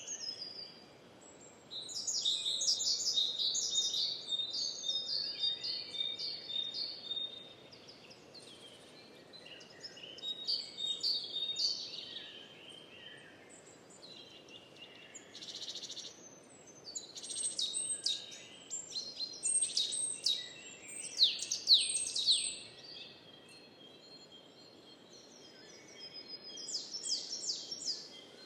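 Songbirds singing in four bursts of rapid, high-pitched phrases, each lasting a few seconds, over a faint steady background hiss.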